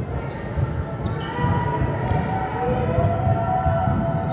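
Volleyballs being hit and bouncing on the court floor in a large gym, a run of thumps and sharp slaps, with high sneaker squeaks in between.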